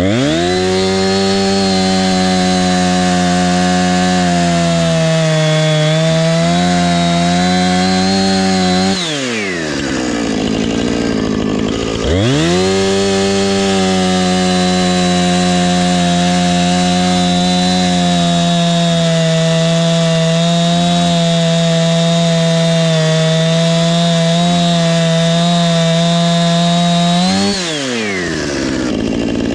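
Husqvarna two-stroke chainsaw cutting through a tree stump at full throttle, with the pitch sagging slightly as the chain bites. Two long cuts, with the engine dropping back to idle for a few seconds between them and again near the end.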